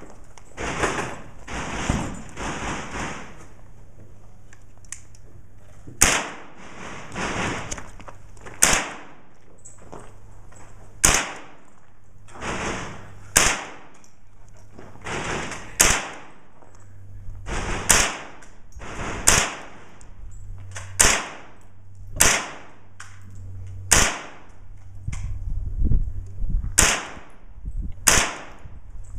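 AR-15-style rifle firing slow, deliberate single shots: about a dozen sharp cracks, roughly one every two seconds.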